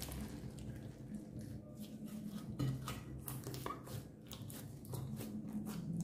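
Hands stretching, folding and pressing clear slime mixed with small beads against a glass dish: a steady run of small sticky pops and crackles, with a couple of louder snaps.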